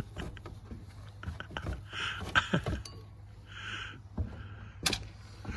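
Scattered light metallic clinks and taps of screws and hand tools being handled, with two short scraping sounds and a sharp click near the end.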